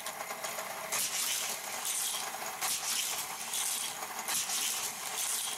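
Battery-powered Hot Wheels track booster whirring steadily while a die-cast car laps the plastic track. There is a rattling rush of noise about once a second, each time the car passes through the booster's spinning wheels and runs round the loop and curves.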